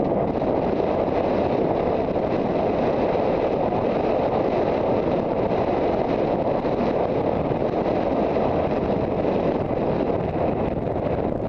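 Steady, loud wind rush buffeting a rider-mounted camera's microphone as the horse travels at speed across country.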